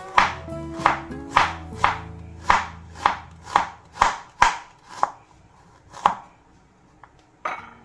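Chef's knife slicing fresh ginger on a bamboo cutting board: about a dozen sharp cuts, roughly two a second, stopping about six seconds in, then one more cut near the end. Faint background music runs under the first half.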